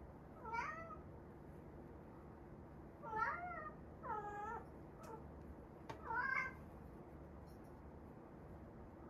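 Domestic cat meowing: four drawn-out meows, each bending up and down in pitch, with a short one in between, spread over the first six or so seconds.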